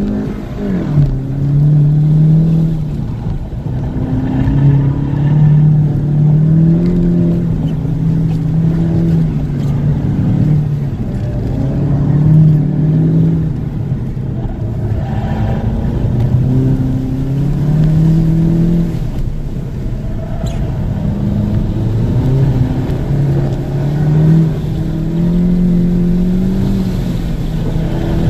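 Volkswagen Golf GTI Mk7's turbocharged 2.0-litre four-cylinder engine heard from inside the cabin, its pitch climbing and dropping over and over as the car accelerates and lifts through an autocross course.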